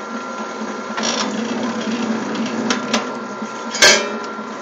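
WS-0251 electric wire stripping machine running with a steady hum. It gets louder about a second in as wire feeds through its cutters and rollers. A couple of light clicks follow, then one sharp clack near the end.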